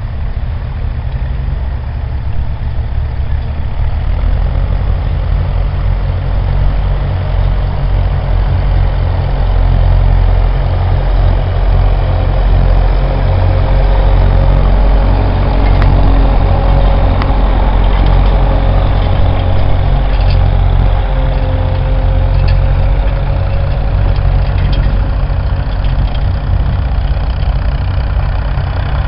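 Vintage tractor engine running steadily while ploughing, getting louder about four seconds in.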